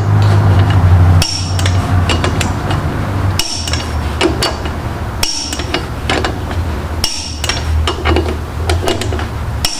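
Click-type torque wrench giving sharp metallic clicks as flywheel bolts are checked at torque, with ratchet and tool knocks in between, over a steady low hum.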